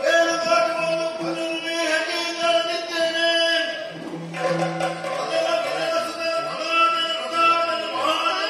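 Yakshagana background music: a singer's voice over a steady drone, with drum accompaniment.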